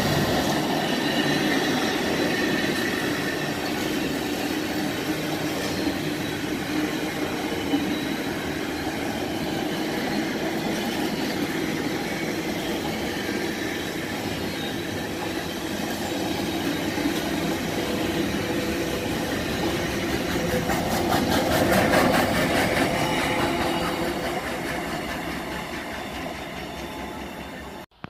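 Container freight train's wagons rolling past at speed: a steady rumble and rattle of wheels on the rails, with a faint squeal of wheels. It swells with a rapid, even clatter about three-quarters of the way through, then fades and cuts off suddenly near the end.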